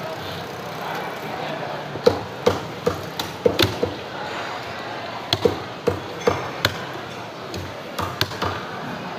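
Heavy cleaver chopping through a fish into steaks on a round wooden chopping block: sharp chops in quick clusters of two to four, about fifteen in all, starting about two seconds in.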